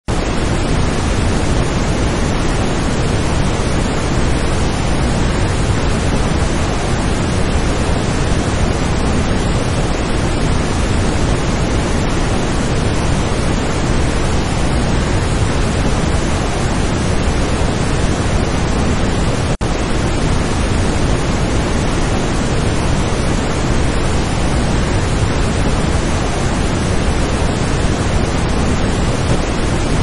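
Whitewater cascade rushing steadily, a dense unbroken hiss of falling and churning water, interrupted once by a split-second dropout about two-thirds of the way through.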